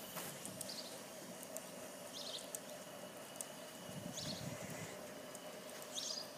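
A 317 cc stationary Stirling hot-air engine running softly, with a steady hum and light ticking. A few short, high chirps come and go at uneven intervals.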